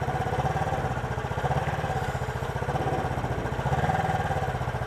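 1977 Suzuki GS 400's parallel-twin engine idling with an even, rapid beat, warmed up and held in first gear. It gets slightly louder about four seconds in.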